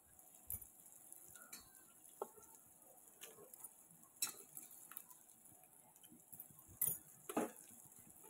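Faint, scattered taps and clicks as fried fish steaks are set one by one into a pot of curry, with louder knocks about four seconds in and twice near the end.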